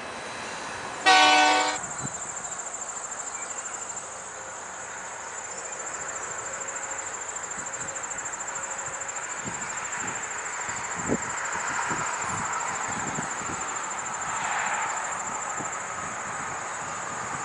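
A locomotive horn gives one short blast about a second in, the loudest sound. After that crickets chirr in a steady high tone while a freight train rumbles and its wheels give scattered clicks, growing a little louder in the second half.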